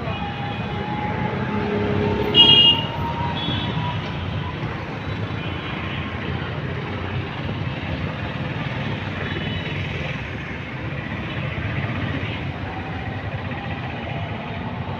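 Steady road traffic noise, with a brief, loud high-pitched sound, such as a horn, about two and a half seconds in.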